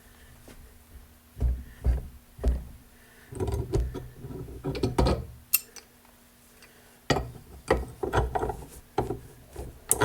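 Metal tools clanking and knocking irregularly while a wrench is worked on a seized mowing-deck spindle, in several short clusters of clanks with pauses between.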